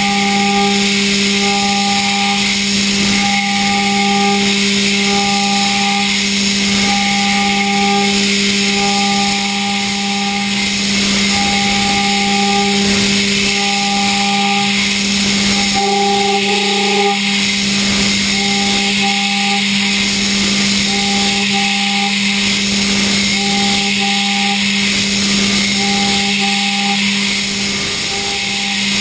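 Okuma GENOS M560V vertical machining center finish hard-milling D2 tool steel hardened to 62 Rc. A steady spindle whine runs under a hiss, while a higher tone pulses on and off about every second and a half as the cutter works.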